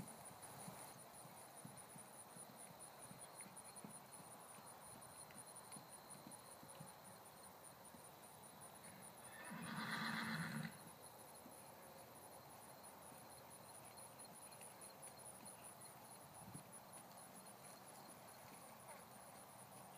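Faint hoofbeats of a draft-cross Hanoverian mare trotting on grass, under a steady high pulsing trill. About halfway through comes a louder sound lasting about a second.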